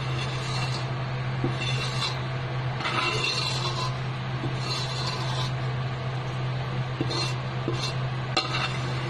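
A spatula scraping salt and browned frying residue across the bottom of an emptied metal wok in a series of short strokes, with a steady low hum underneath.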